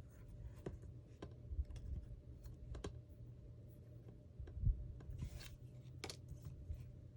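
Faint handling of paper and craft supplies on a tabletop: scattered light clicks and taps, a couple of soft thumps, and a brief rustle of paper a little past the middle.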